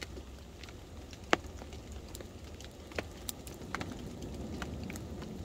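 Small wood campfire crackling, with a few sharp pops, the loudest about a second in, over light rain patter.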